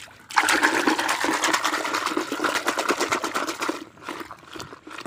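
A hand swishing and churning water in a plastic bucket, whipping detergent powder into foam: a dense, rapid sloshing that starts just after the beginning and dies down after about three and a half seconds.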